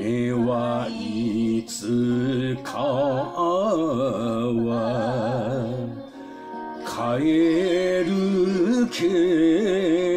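Enka singing: a voice holds long notes with heavy vibrato over band accompaniment, pausing briefly about six seconds in before the next phrase begins.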